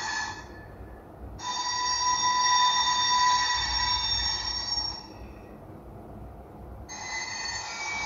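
Recorded railway wheel-flange squeal played by an Iowa Scaled Engineering Squealer sound module, set off as an HO scale model train passes its sensor. High screeching tones come in spells: one fades just after the start, a longer, louder one runs from about a second and a half to five seconds in, and another starts near the end, over a steady low rumble.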